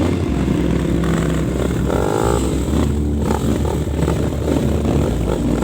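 Dirt-bike engines running, with some revving.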